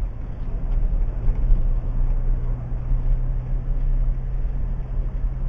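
Car engine and road noise heard from inside the cabin while driving: a steady low hum over a constant rumble.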